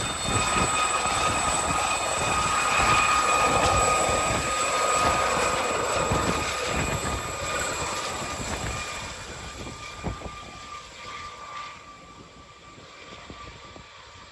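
Aérospatiale Gazelle helicopter lifting off and flying away: a steady high turbine whine over rotor noise, fading as it departs over the last few seconds.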